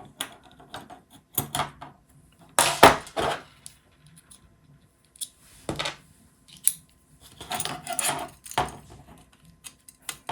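Small metal tools and driver bits clinking and clattering in irregular taps, with the loudest cluster about three seconds in.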